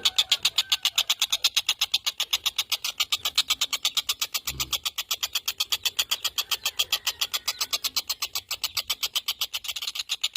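Tengkek buto kingfisher calling in a long, rapid chattering trill of high notes, about eight a second, at a steady pace. A brief low thump comes about four and a half seconds in.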